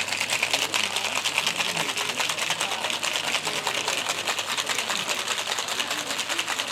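Ice rattling rapidly and steadily in a cocktail shaker as it is shaken, over faint background chatter.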